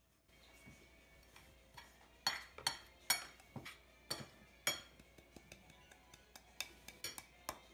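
A ceramic bowl clinking and tapping against a glass mixing bowl as dry almond flour and powdered sugar are tipped in. There are about fifteen sharp, irregular clinks, each with a short ring, starting about two seconds in.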